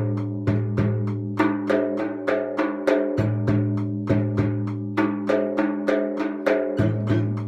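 Bendir frame drum playing the 12/8 Firenkçin usul: deep, ringing 'düm' strokes and sharper 'te' and 'ke' strokes in a steady, even rhythm of about three strokes a second, over sustained pitched tones.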